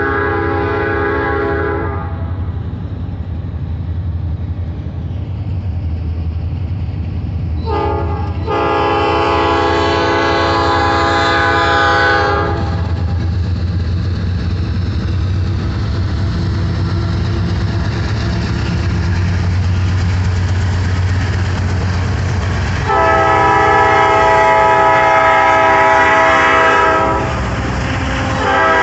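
Freight train led by EMD SD70ACE diesel locomotives passing, the engines running with a steady low rumble as the lead locomotive sounds its air horn. There are several blasts: one fading about two seconds in, a short one about eight seconds in followed at once by a long one, another long one about twenty-three seconds in, and one more near the end.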